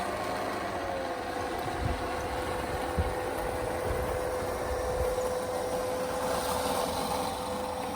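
Small electric motor of a 3D-printed RC model snowblower running at a steady speed with a steady high whine, over a rushing haze of noise. There are a few low thumps.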